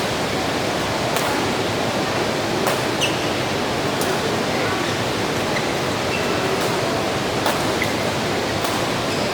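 Steady hiss of falling rain, with a few sharp ticks scattered through it.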